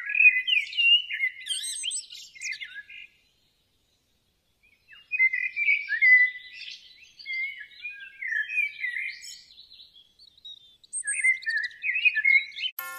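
Songbirds singing: a busy run of quick chirps and warbled phrases, with a pause of about a second and a half some three seconds in before the singing resumes.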